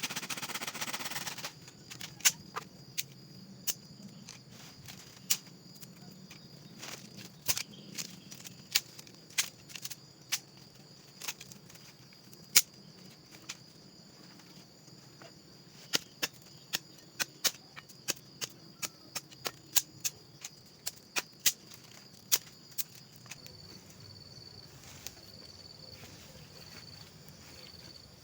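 Burning wood crackling and popping in a campfire: sharp, irregular cracks at uneven intervals, with a steady high insect buzz behind them that pulses near the end.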